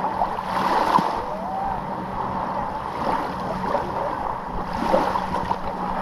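Small sea waves washing steadily on the shore.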